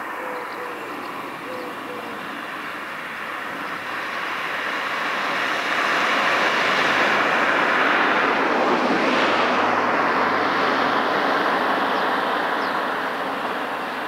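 Rushing noise of a passing vehicle that builds for several seconds, is loudest a little past the middle, then fades away.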